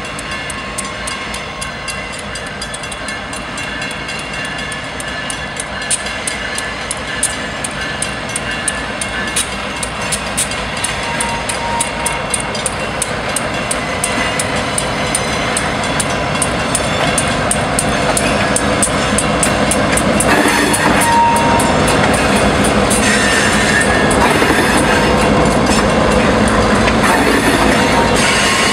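Freight train led by two diesel locomotives rolling through a grade crossing, getting steadily louder as the engines come by. It turns into the rattle and clatter of the cars passing close. The crossing bell is ringing in regular dings throughout.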